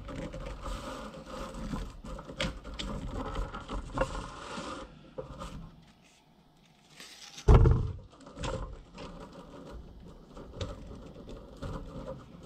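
Plastic dust-extraction adapter being worked onto a power tool's dust port: handling, scraping and small clicks, with one loud knock about seven and a half seconds in.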